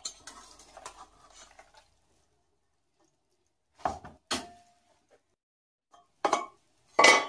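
Boiled leeks sliding softly out of a stainless steel pot into a mesh strainer, then quiet. About four seconds in come two sharp knocks of the pot against the strainer, the second with a short metallic ring. Near the end a wooden spoon scrapes twice against the pot.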